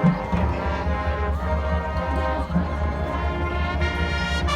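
High school marching band playing, with brass carrying sustained chords over a steady low bass line.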